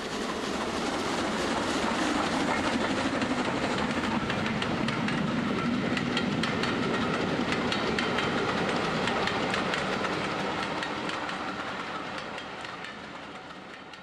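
Train running on rails, its wheels clicking repeatedly over rail joints. It grows louder over the first couple of seconds, holds steady, then fades away near the end.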